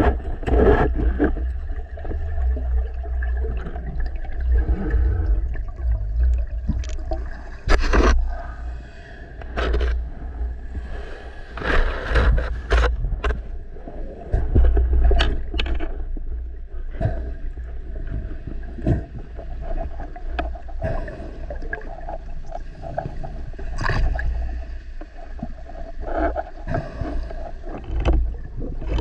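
Underwater sound picked up by a camera in its housing: a constant low water rumble with many knocks and scrapes as the breath-hold diver moves through the water.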